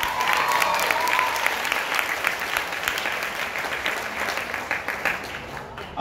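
Audience applauding: dense, steady clapping that eases slightly near the end.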